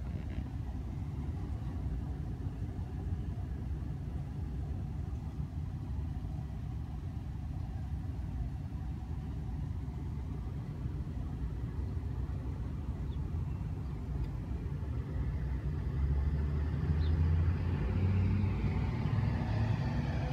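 Street traffic noise, with a vehicle engine hum growing louder in the last few seconds.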